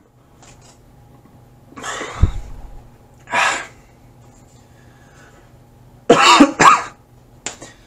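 A young man coughing hard several times, the loudest two coughs coming close together about six seconds in. His throat is burning from eating extremely hot chili wings.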